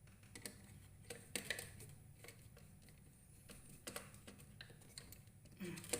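Faint, scattered small clicks and taps, a few each second: a wire and a screwdriver being worked into the screw terminal of a fire-alarm module.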